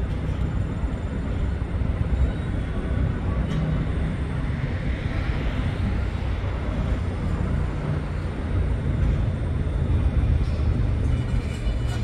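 Steady low rumble of city traffic, swelling slightly about five seconds in.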